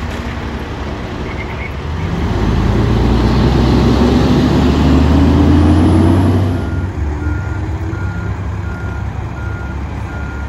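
A large truck's engine revs up, rising steadily in pitch for a few seconds, then its reversing alarm beeps at an even pace of about one and a half beeps a second as it backs up.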